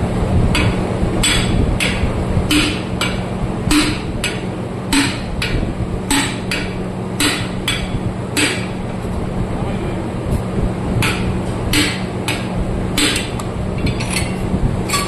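Hammer blows on the steel parts of a tractor's rear axle assembly, about two strikes a second with a break of a couple of seconds past the middle, over a steady low hum.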